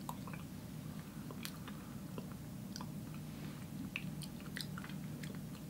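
Faint mouth sounds of someone tasting a spoonful of yogurt: scattered small clicks and smacks of lips and tongue over a low room hum.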